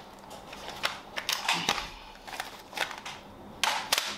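An AR-15 rifle and nylon plate carrier being handled: scattered clicks and knocks of the rifle's metal and plastic parts, with rustling and scraping of the nylon gear and sling, loudest near the end.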